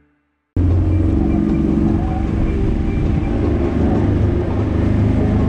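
Outboard motor of a passenger boat running steadily at speed, with the rush of water from the wake. It cuts in abruptly about half a second in, after a moment of silence.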